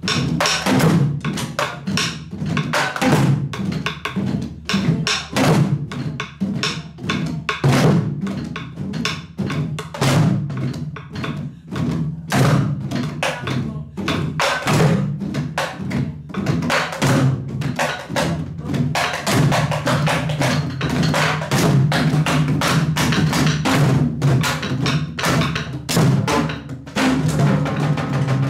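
A group of Korean buk barrel drums played together with a janggu, in the fast jajinmori rhythm. Sticks strike the drumheads and wooden shells, and palms beat the other heads. The strokes run closer together in the last third.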